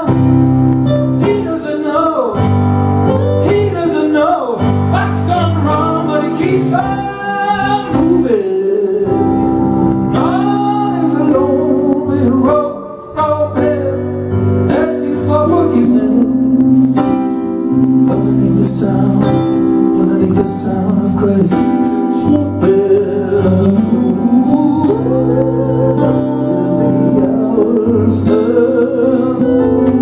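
Live band music: a man singing over electric guitar accompaniment.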